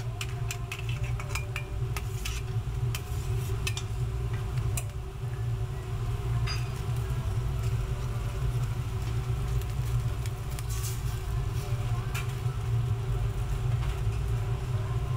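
Steady low rumble of a commercial kitchen range, with a cluster of light clinks and taps of seafood and a utensil against a metal pan in the first few seconds, and a few more clicks later.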